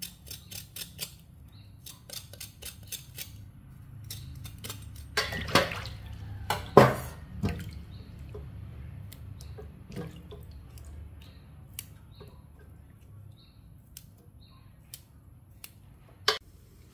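Vegetable stems being scraped with a cleaver and rinsed by hand in a stainless steel bowl of water: quick light taps at first, then louder splashing and dripping about halfway through, with scattered clinks against the steel and one sharp knock near the end.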